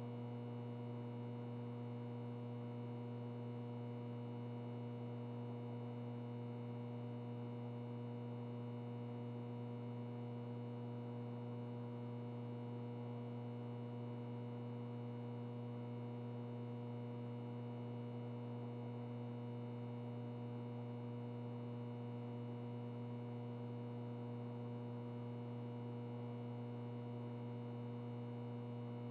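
Ventilation noise with a steady electrical buzz: a strong low hum with overtones over a soft, even hiss, unchanging throughout.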